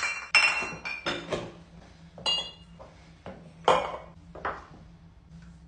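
Glass bottles clinking against each other as they are handled and packed into a backpack: about seven sharp clinks, several with a brief high ring, spaced irregularly over the first four and a half seconds.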